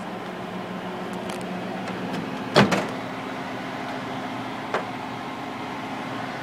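Microwave oven running with a steady low hum that shifts slightly in pitch about two seconds in. A sharp knock sounds just after, the loudest thing here, and a fainter click comes near the five-second mark.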